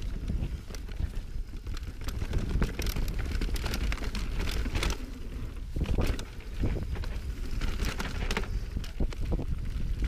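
Mountain bike riding over rough trail, with frequent sharp knocks and rattles from the tyres and bike over rocks and roots. Wind buffets the microphone throughout as a low rumble.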